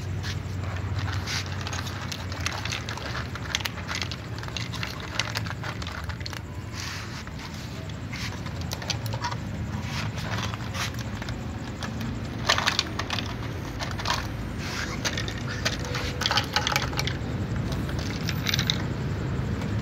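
Several cats eating dry kibble from plastic bowls: a run of small crunches and clicks. In the second half come denser rattles as more kibble is poured from a plastic container into the bowls. A low steady hum lies underneath.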